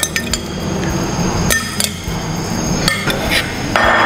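Kitchen utensil clinking against a frying pan and dishes as gnocchi are added to a vegetable sauce and moved around: three short clusters of clinks about a second and a half apart, then a brief scrape near the end.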